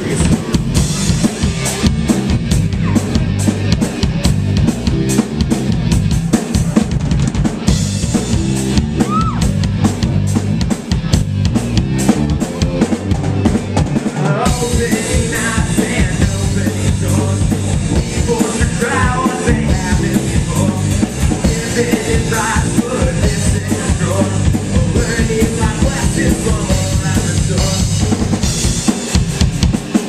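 Live rock band playing: drum kit, electric bass and electric guitar, loud and steady, growing fuller and brighter about halfway through.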